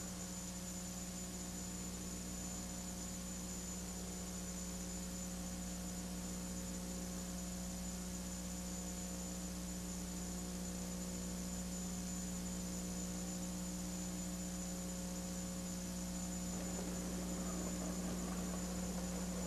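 Steady electrical mains hum with a faint hiss and a thin high tone, unchanging throughout.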